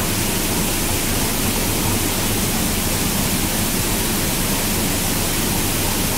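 Steady rushing hiss of a robotic paint spray booth while the robot arm's cluster of spray guns atomizes paint, with a faint low hum underneath.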